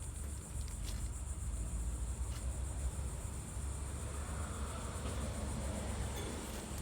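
2024 4-ton Lennox Merit-series heat pump outdoor unit running with a steady low hum, with a few light ticks in the first couple of seconds.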